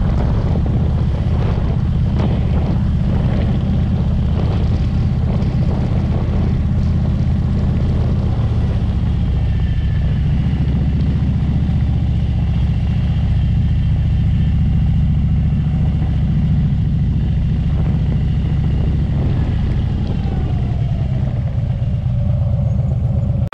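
Motorcycle engine running steadily at low street speed, with a deep, even rumble heard from the rider's seat. Near the end the engine note falls as the bike slows.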